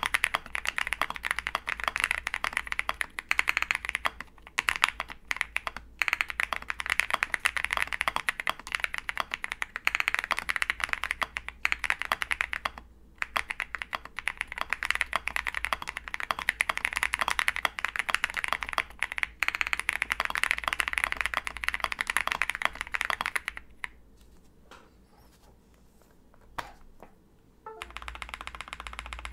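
Fast two-handed typing on a custom mechanical keyboard: an OwLabs SE Jelly Epoch with lubed Holy Boba tactile switches, a polycarbonate plate, full foam and MT3 PBT keycaps, giving a dense run of keystrokes. About three-quarters of the way through the typing stops, leaving only a few faint key clicks.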